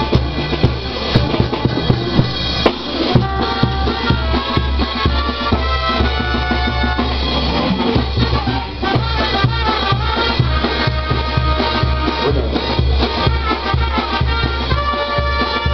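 Live Latin dance band playing: busy timbales, cymbals and congas keep a driving beat, and trumpets come in with held notes about three seconds in.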